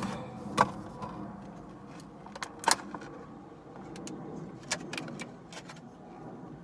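Packaging being handled while unboxing a small emergency hammer: light rustling of the box and clear plastic pieces, with scattered sharp clicks, the loudest about two and a half seconds in.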